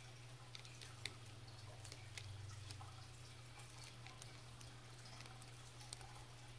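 Faint, scattered metal clicks and ticks of a precision screwdriver turning the tiny screws of a watch's stainless steel caseback, the loudest click about a second in, over a low steady hum.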